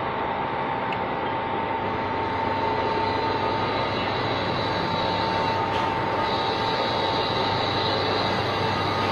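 Metal lathe running steadily, a continuous machining noise with a fixed whine, growing slightly louder a couple of seconds in.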